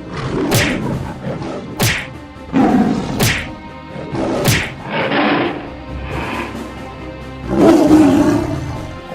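Cartoon action soundtrack: music with four sharp cracks and several heavier noisy impact hits, the loudest near the end.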